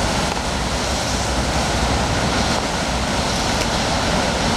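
Steady rumbling wind noise on the microphone, with no clear separate events.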